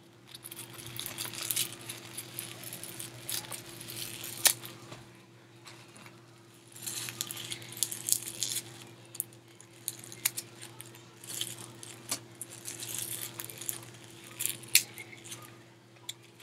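Crinkling and tearing of a small foil blind-bag wrapper being picked open by hand, in irregular spurts of rustling with small sharp clicks and quieter gaps between them. A faint steady hum runs underneath.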